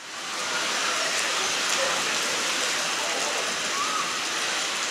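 Heavy thunderstorm downpour pelting a paved street, a steady dense hiss of rain hitting pavement and standing water. It fades in at the very start, then holds steady.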